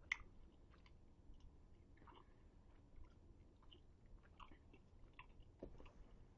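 Faint chewing and small wet mouth clicks close to the microphone, a person chewing a soft mango ginger chew, with one sharper click right at the start.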